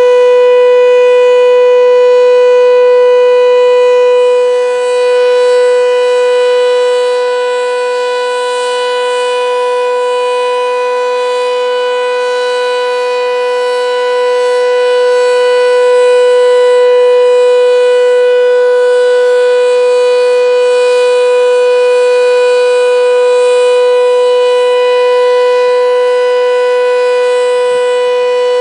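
Sentry 7V8-B outdoor warning siren sounding its steady alert: one loud tone held at constant pitch, its loudness dipping and swelling slightly.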